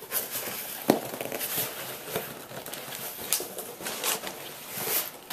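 Cardboard box flaps being pulled open and folded back by hand: irregular crackling and rustling of cardboard, with a sharp snap about a second in.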